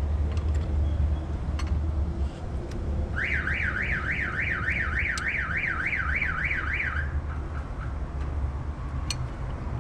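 A car alarm's warbling siren starts about three seconds in and sounds for about four seconds, sweeping up and down about three times a second. A steady low hum runs underneath.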